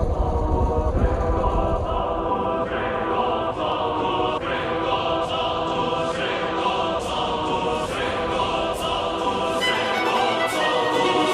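Background music: sustained choir-like chords that change about once a second, over a light regular beat. A heavy bass fades out about a second in.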